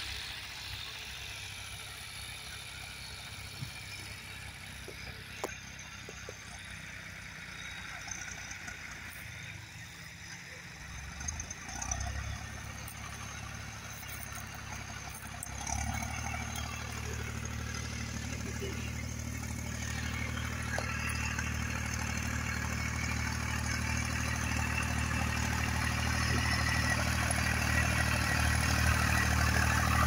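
Homemade mini tractor's engine running steadily as it pulls a plough through stubble. It comes in about 12 seconds in, gets louder a few seconds later, and keeps rising as the tractor draws close.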